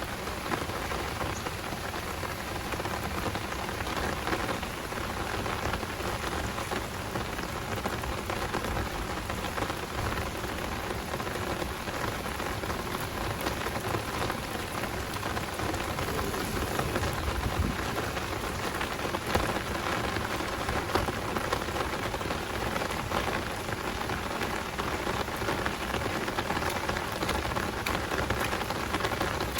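Heavy downpour: a steady hiss of rain with many close individual drops ticking.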